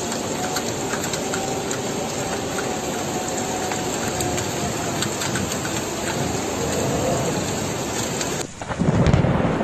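Steady rushing of a flash flood's water and rain, an even dense roar. About eight and a half seconds in it cuts off abruptly and a deep rumble of thunder with rain comes in.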